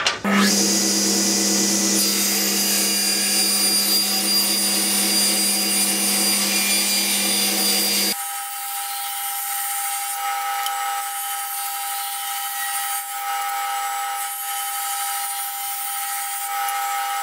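Table saw switched on and running, ripping a knotty softwood slat along the rip fence: a loud, steady motor and blade sound with a pitched hum. About eight seconds in the sound changes abruptly, losing its deep hum while a higher steady whine carries on.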